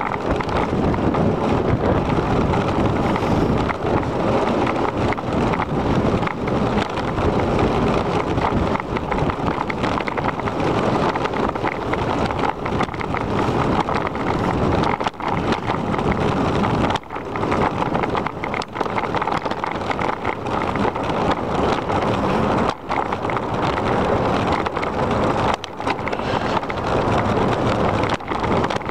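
Wind rushing over the microphone of a camera on a moving bicycle, a steady loud noise that drops out briefly a few times.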